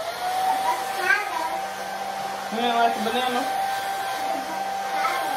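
Handheld hair dryer with a comb attachment switching on and running steadily: a rush of air with a steady motor whine.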